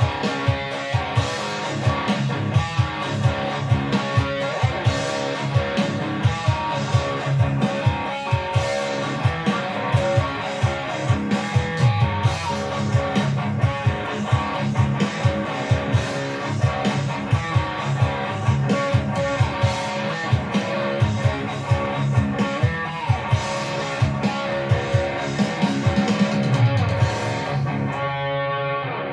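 Distorted electric guitar riffing, an Ibanez RG through a Joyo Bantamp Zombie 2 XL amp boosted by an Ibanez Tube Screamer Mini, with a chorus pedal, into a 1x12 cabinet with a Celestion V30, played along to a rock drum backing track. Near the end the drums stop and a last chord rings on.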